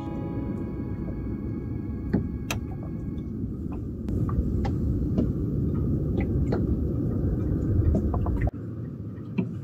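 Low, steady rumble of wind on the microphone aboard a small boat, with scattered light clicks and knocks. The rumble cuts off suddenly near the end.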